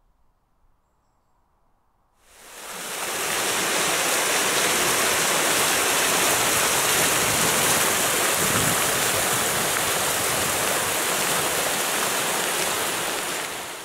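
Stream rapids rushing over rocks: a loud, steady rush of white water that fades in after about two seconds of near silence.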